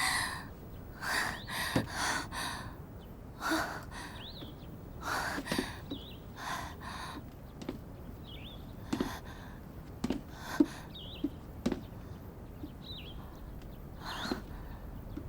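A heavily pregnant woman's labored breathing, a string of short heavy breaths and gasps, bunched in the first few seconds and then spaced out, a sign of her pains as labor approaches. Small birds chirp now and then.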